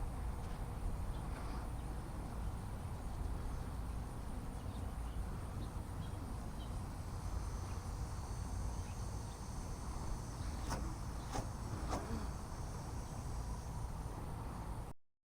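Outdoor background ambience: a steady low rumble, with faint high insect sounds entering about halfway through and a few light clicks near the end. The sound cuts out abruptly at the very end.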